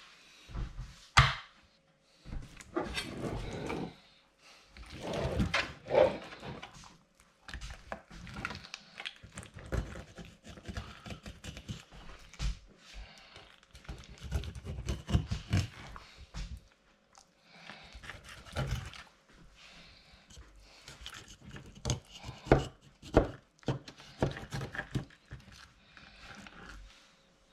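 Irregular wooden knocks, thumps and scuffs of gear being handled on a small boat, coming in clusters with short pauses between them.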